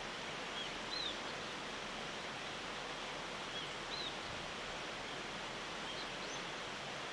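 A small wild bird giving short, high, arched chirps in pairs, three pairs about three seconds apart, over a steady hiss of background noise.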